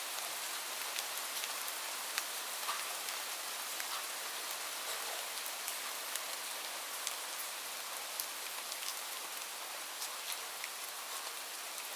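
Light rain falling steadily: an even hiss with many separate drops ticking on a surface at irregular moments.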